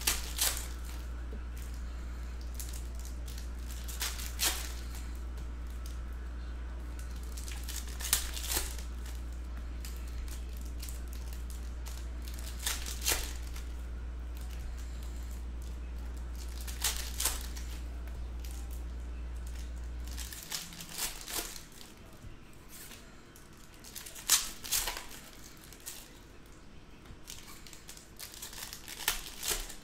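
Foil trading-card pack wrappers being torn open and crinkled by hand, in short crinkles about every four seconds. A steady low hum runs underneath and cuts off about two-thirds of the way through.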